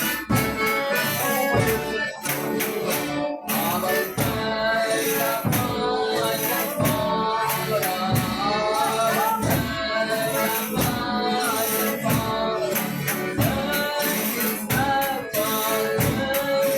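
Folia de Reis company playing and singing traditional Brazilian devotional music: voices singing over a tambourine shaken and struck in a steady beat.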